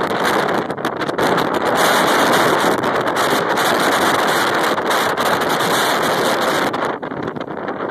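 Strong storm wind buffeting the microphone: a loud, steady rush of noise that eases a little near the end.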